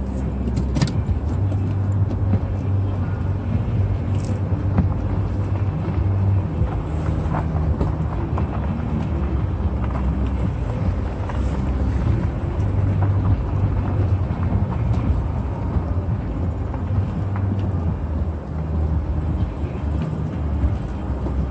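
A car driving slowly, its engine and tyres making a steady low rumble with a few faint ticks.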